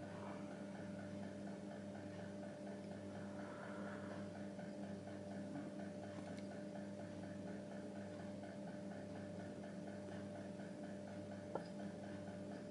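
Steady low electrical hum, with a single small click near the end.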